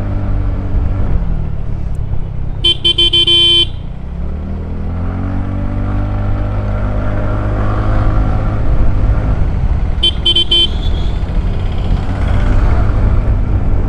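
TVS Ntorq 125 scooter's fuel-injected single-cylinder engine running under way, easing off about a second in and then climbing in pitch as it accelerates. A vehicle horn sounds for about a second near the start, and again briefly about ten seconds in.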